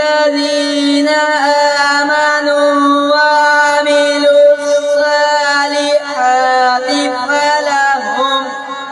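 A boy's voice reciting the Quran in the melodic, chanted qirat style. He holds long, steady notes for seconds at a time, then moves into wavering, ornamented turns of pitch about six seconds in.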